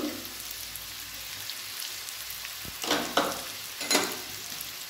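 Hot mustard oil sizzling steadily in a steel kadai under chunks of fried pumpkin and potato. A few short, louder hissing rushes come about three and four seconds in, while turmeric powder is tipped in.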